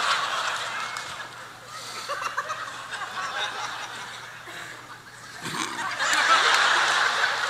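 Audience laughing, the laughter dying down over the first couple of seconds and swelling again about six seconds in.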